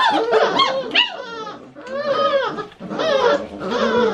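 Four-week-old Great Dane puppies crying and whining in a string of high, wavering cries, some overlapping.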